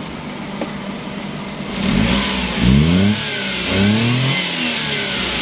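Suzuki F6A three-cylinder engine idling, then revved in three or four quick throttle blips from about two seconds in, the pitch rising and dropping back each time before it settles to idle. It is running on a freshly fitted fuel filter, replaced because a clogged filter kept making the engine stall.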